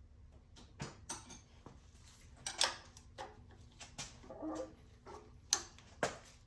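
Scattered metal clicks, knocks and a scrape of hand tools working on a car engine's serpentine belt tensioner, with a short whine near the middle.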